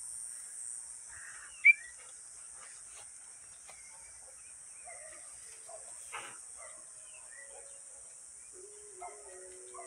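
Rural yard ambience: a steady high hiss of crickets with scattered bird chirps, one sharp short chirp loudest about two seconds in. A low, drawn-out call comes near the end.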